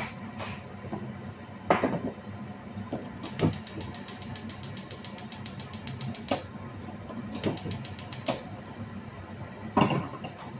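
Gas stove's electric spark igniter clicking rapidly, about ten clicks a second, for about three seconds, then again for about a second. A couple of knocks of a pan on the stove, the loudest one near the end.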